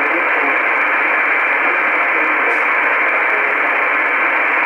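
Steady shortwave static through an Icom IC-R8500 receiver in upper-sideband mode, a hiss held to a narrow, telephone-like band, with the weather broadcast's voice lost under the noise.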